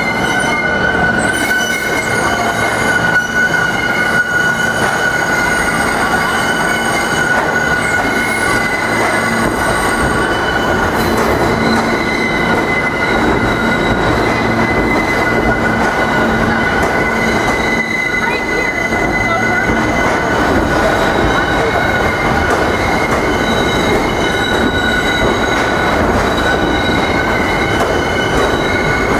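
R160-series New York City subway train running past at close range along the platform, its steel wheels squealing steadily on the rails over the rumble of the cars.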